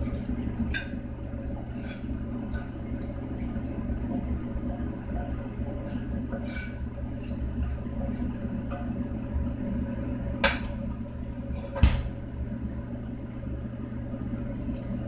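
Wooden spatula scraping and tapping stir-fried pork out of a frying pan onto a plate, then two sharp knocks about ten and twelve seconds in as the pan and spatula are put down, over a steady low hum.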